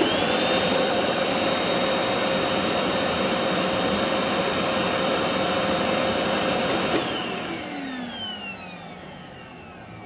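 Samsung SC18M21C0VN canister vacuum cleaner switched on, its motor coming straight up to speed with a steady whine, then switched off about seven seconds in and winding down with a falling whine. It runs at full power because the faulty speed regulator has been bypassed and the motor is switched directly through the power button.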